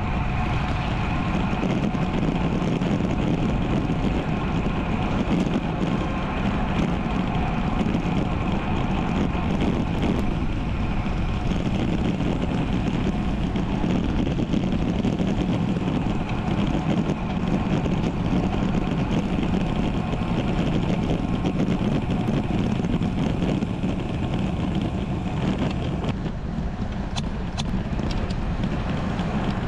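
Steady wind rush and road noise from a road bike in motion, heard through an action camera's microphone, with a few faint clicks near the end.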